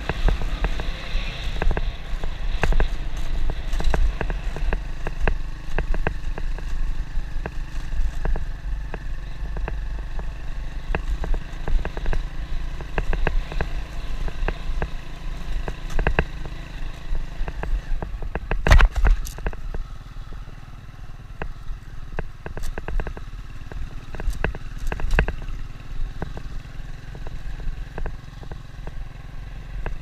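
Motorbike riding along a rough dirt road, its engine running under a steady low rumble, with frequent knocks and rattles as it jolts over the ruts. One harder jolt comes about two-thirds of the way through, and the ride is a little quieter near the end.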